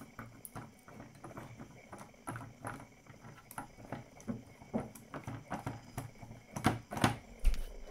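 A Brio toy crane, plastic and wood, being turned by hand, giving a string of small irregular clicks and knocks. A few louder knocks come near the end.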